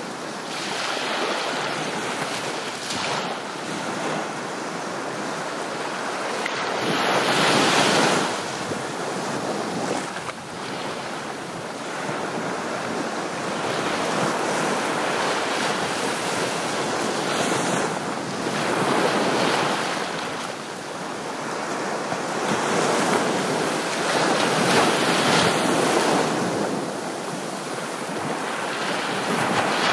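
Ocean surf: a continuous rushing of waves that swells and fades back every few seconds as they wash in.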